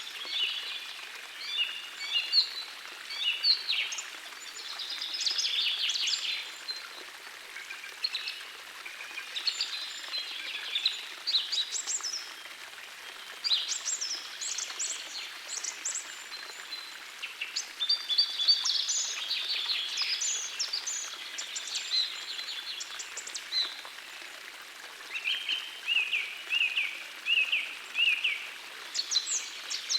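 Several songbirds singing and calling over the steady rush of a gentle forest stream, with a run of about six repeated notes near the end.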